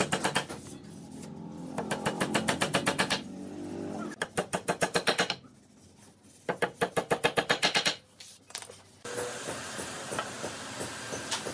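Steel hammer rapidly tapping a hardwood rail into its leg joint, in four quick runs of about ten blows a second with short pauses between. About nine seconds in the blows stop and a steady hiss takes over.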